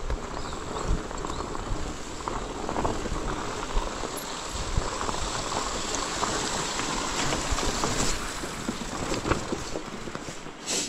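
Loaded mountain bike riding over a rough trail: tyres running on rocky ground with many small rattles and clicks, over a steady noise of wind on the microphone, and a short louder rush near the end.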